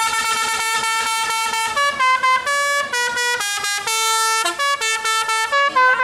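Tour bus's 'telolet' musical air horn playing a tune: one long held note, then a quick run of short notes stepping up and down in pitch.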